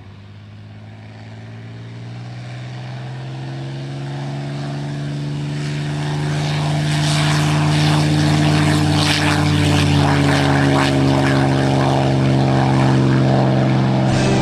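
Propeller aircraft's piston engine droning, growing steadily louder through the first half as it comes closer, then holding loud.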